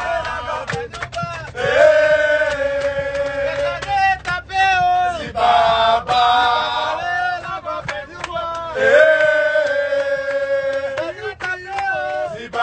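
A group of men chanting a song together, in phrases of long held notes a couple of seconds each, with sharp beats in the short gaps between phrases.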